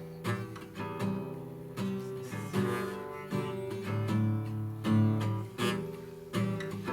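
Instrumental passage of a worship song: acoustic guitar strumming chords, one strum about every second, over low sustained bass notes.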